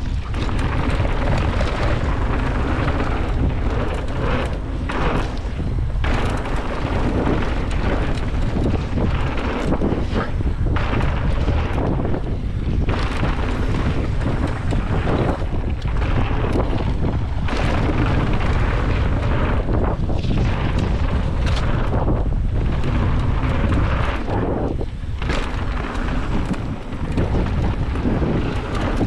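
Wind buffeting a GoPro's microphone, with mountain-bike tyres rolling over loose gravel and dirt at speed. A steady, loud rush that dips briefly several times.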